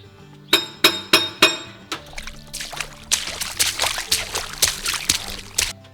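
Four sharp metal clinks of a wrench on a hydraulic hose fitting. Then hydraulic oil gushes and sprays from the loosened hose in a hiss for about three and a half seconds, cutting off suddenly. Background music plays underneath.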